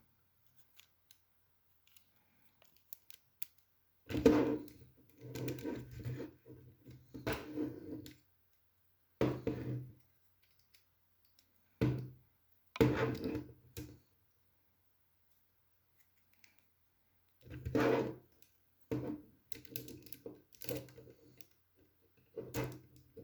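Plastic Lego pieces being handled and pressed together, clicking and rattling in irregular bursts with pauses in between.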